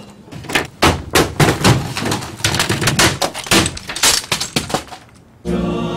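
Office equipment and furniture being smashed and knocked to the floor: a fast run of crashes, bangs and thuds with things breaking, which stops shortly before the end.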